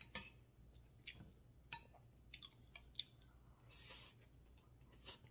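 A person quietly chewing a mouthful of food, heard as scattered small mouth clicks, with a short hiss about four seconds in.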